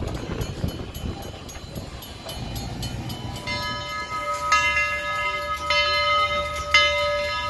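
A passing train's low rumble for the first few seconds, then a bell struck about once a second, each stroke ringing on into the next.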